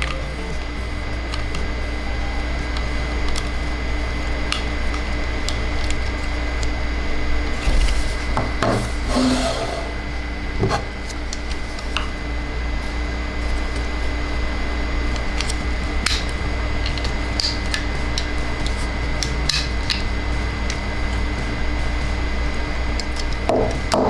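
Plastic toy pieces being handled: scattered small clicks and brief rubbing, busiest about a third of the way in and near the end, over a steady low hum.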